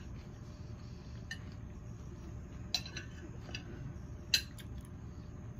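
Fork or other cutlery clinking against a plate or food container during eating: a handful of short, light clinks, two of them sharper, one near the middle and one about three-quarters through.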